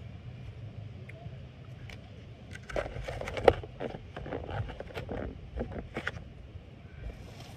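Takeout salad bowl being handled: a run of crackles and sharp clicks, the loudest a single click about three and a half seconds in. A low wind rumble on the microphone runs under it.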